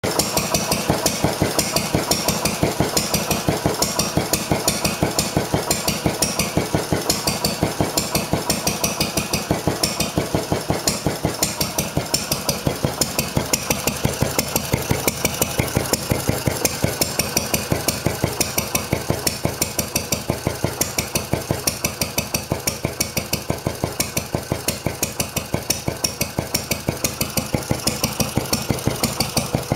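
Wolseley WD8 single-cylinder stationary engine running on its own, firing in an even beat of about four to five strokes a second. It is newly rebuilt and running, though the owner says it still needs a few adjustments.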